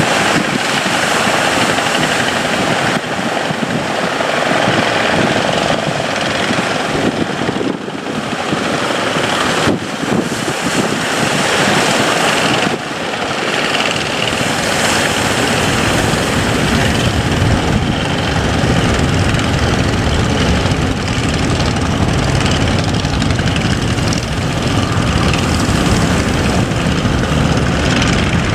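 Boat engine running steadily under a loud rushing noise, with a few abrupt changes where the sound cuts, and a deeper low drone in the second half.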